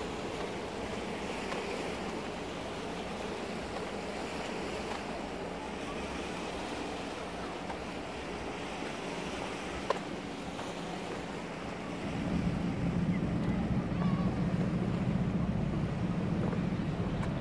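Sea waves washing against the shore, with wind. About twelve seconds in, a low rumble comes in and grows louder, and there is a single short click shortly before it.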